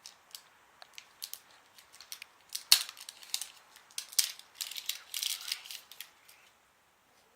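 Wrapper crinkling and plastic clicking as a surprise egg is unwrapped and opened: scattered sharp clicks, the loudest about three seconds in, then a burst of crinkling a couple of seconds later.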